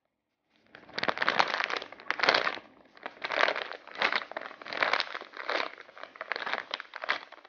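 Clear plastic packaging bag crinkling as a foam squishy toy inside it is squeezed over and over by hand, starting about half a second in and coming in rough bursts about twice a second.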